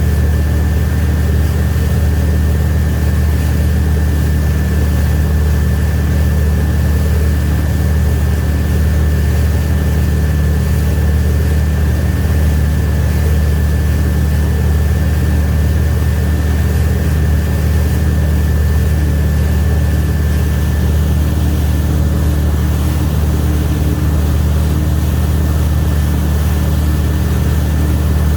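Wakesurf boat's engine running steadily under way: a deep, even drone with a thin steady whine above it.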